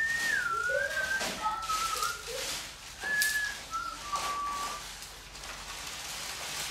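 A person whistling a few slow notes, each held briefly and sliding downward, in a loose tune that fades out after about five seconds. Short bursts of rustling noise come in between the notes.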